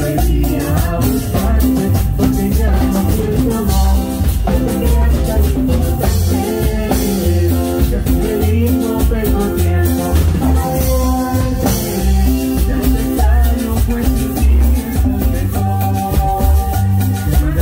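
Live band playing Latin dance music over a PA, with a steady scraped metal güira rhythm, congas, drum kit, bass and keyboard, and a woman singing the lead.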